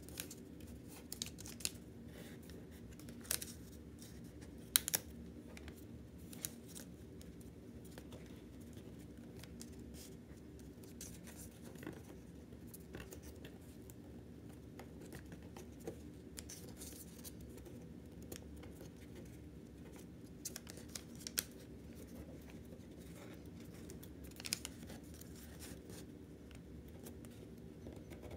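A one-dollar bill being folded and creased by fingertips: faint rustles and scrapes of stiff banknote paper with scattered short, sharp crackles, over a faint steady background hum.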